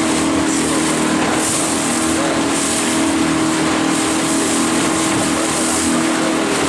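Motorboat engine running steadily at cruising speed, with wind and water rushing past the boat.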